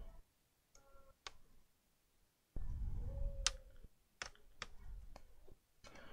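Scattered small clicks and taps of laptop parts and tools being handled on a workbench, with a short low hum about two and a half seconds in.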